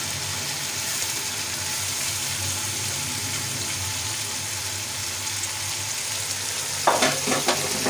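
Oil and fried onion-tomato masala sizzling steadily in a large metal pot as boiled chana dal is tipped in, with a few short knocks near the end.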